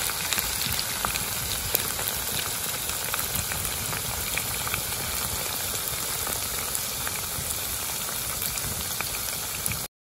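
Chicken deep-frying in hot oil: a steady sizzle with many small crackles and pops, stopping abruptly near the end.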